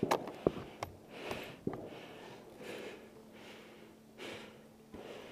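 A person breathing hard close to the microphone, one breath about every second and a half. A few sharp clicks and knocks in the first two seconds are the loudest sounds.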